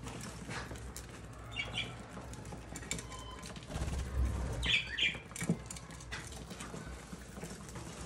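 Budgerigars feeding, their beaks pecking and husking seed in light, scattered clicks, with two short chirps. About four seconds in, a budgie takes off with a flutter of wings.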